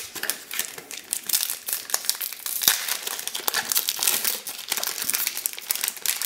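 A Pokémon trading-card booster pack's foil wrapper crinkling and tearing as it is pulled open by hand: a dense, continuous run of sharp crackles.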